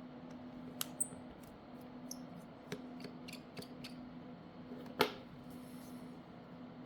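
Light clicks and taps of small tools and parts handled during smartphone disassembly, about a dozen scattered through, the loudest about five seconds in, over a steady low hum.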